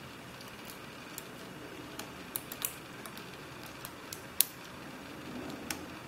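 Faint, scattered metallic clicks of a lock pick working the pins of a CISA 220/50 padlock under tension, with the lock in a false set; the sharpest click comes about four and a half seconds in.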